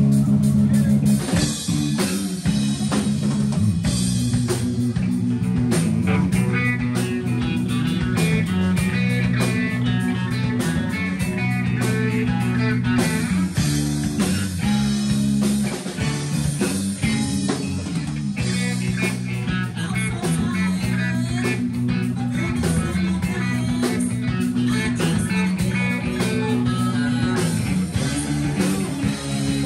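Rock music with guitar over a repeating bass line and a drum kit, in a psychedelic, bluesy style, playing steadily throughout.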